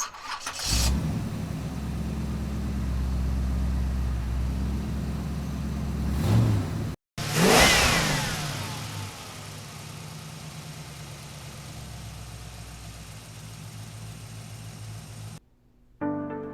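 An engine running at a low, steady idle, which swells into a short rev near the end of the first half before cutting off abruptly. A sharp hit with tones sliding downward follows and fades into a low steady hum.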